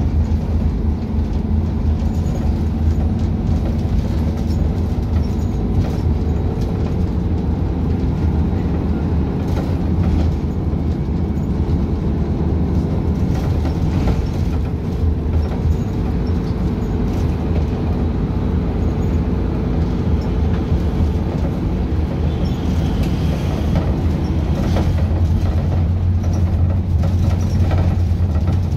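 Cabin noise of a Scania K250UB bus with Caio Millenium body under way: a steady low diesel engine drone with scattered rattles and clicks from the body and fittings, a little louder near the end.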